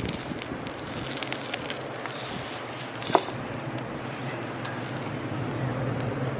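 Shellfish sizzling in foil shells over a charcoal grill, with small crackles and pops and one short knock about three seconds in.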